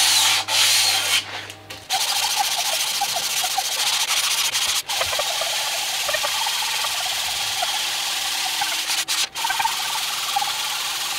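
An abrasive block rubbed back and forth by hand along freshly milled metal vice ways, a steady scratchy rubbing that finishes the surface. A low hum under the first strokes stops about two seconds in.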